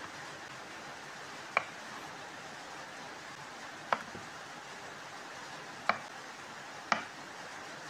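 Chef's knife cutting through long eggplants onto a wooden cutting board: four sharp knocks of the blade hitting the board, one to two seconds apart, over a faint steady hiss.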